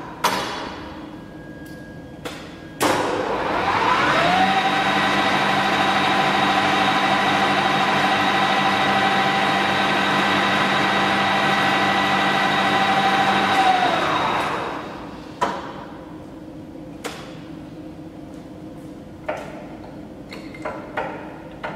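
Ernault Somua Cholet 550 lathe spindle starting up about three seconds in, rising in pitch as the chuck comes up to speed. It runs steadily for about ten seconds, then winds down to a stop. A few sharp clicks and knocks come before the start and after the stop.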